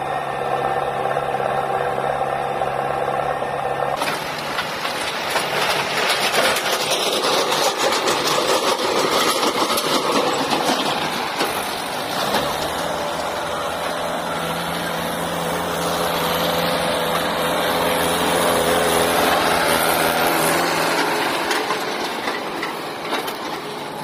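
Diesel engines of a JCB 3DX backhoe loader and a farm tractor running under load in loose soil. About four seconds in the sound turns suddenly louder and rougher, and the engine note shifts around twelve seconds in.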